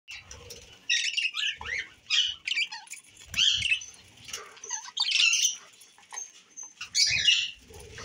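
A flock of budgerigars chattering: repeated bursts of high, wavering chirps and warbles, with a few low thumps among them.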